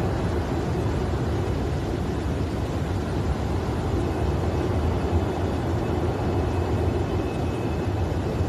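A steady low rumble of running machinery, with a faint thin high tone in the second half.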